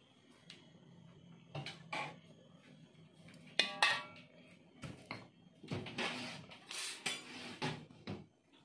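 Slotted spatula knocking against a large metal wok and scraping around its bottom through a little leftover oil. A few separate clanks come first, the loudest one just before the midpoint, then a run of rough scraping strokes near the end.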